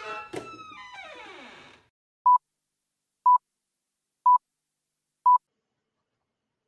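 A sound effect slides down in pitch and fades out about two seconds in. Then a film-leader countdown gives four short, identical beeps, one a second.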